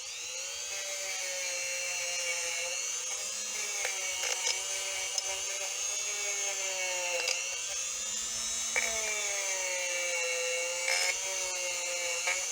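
Small high-speed rotary tool running at a steady high-pitched whine while cleaning rust off old pliers. Its pitch sags several times as it bears on the metal, with small ticks of contact.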